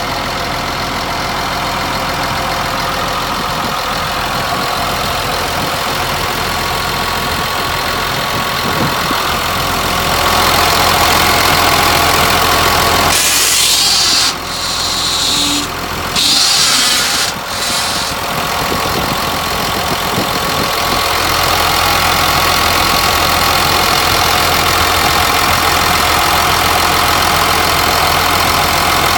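Cat D5N crawler dozer's diesel engine running steadily. About halfway through, its low running sound gives way for several seconds to a loud hiss with a few short breaks, then the engine sound returns a little louder.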